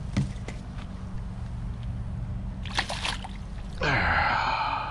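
Water splashing as a largemouth bass is grabbed and lifted out of the shallows at the bank, a short splash just before three seconds in and a louder, longer one near the end, over a steady low hum.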